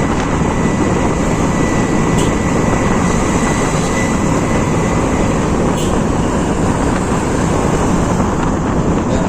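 Steady wind and road noise from riding a Honda Scoopy motor scooter, with the engine's running buried in the rush of air on the microphone.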